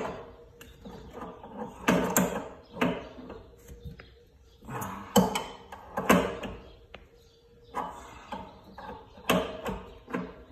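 A metal wrench knocking and scraping against a pipe fitting on top of a water heater as the fitting is tightened, in irregular sharp knocks a second or more apart.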